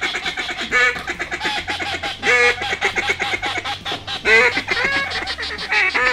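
A flock of waterfowl calling, many overlapping short calls one after another without a break.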